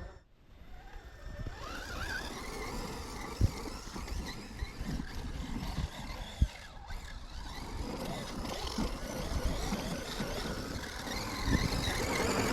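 Radio-controlled car driving over sand and dirt, its motor whining and tires churning, with two sharp knocks a few seconds apart.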